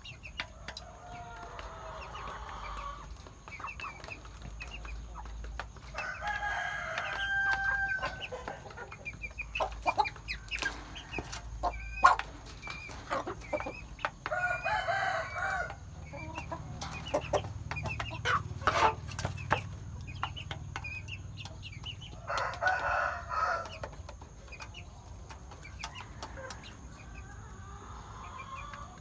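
Roosters crowing several times, each call a second or two long, over chickens pecking grain from a metal bowl, beaks tapping the metal in quick sharp clicks that come thickest in the middle stretch.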